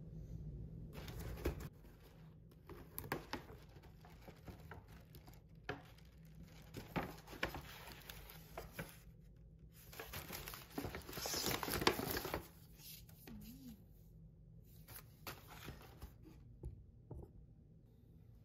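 Paper shopping bag and paper wrapping rustling and crinkling as items are lifted out and unwrapped by hand, in uneven bursts, loudest about ten to twelve seconds in.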